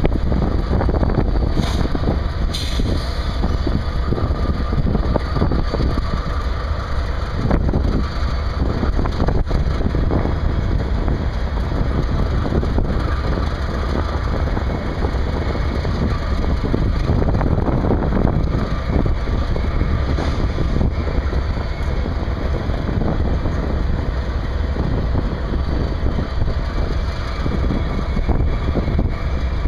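Diesel-electric freight locomotives idling: a steady, low engine rumble that holds even throughout.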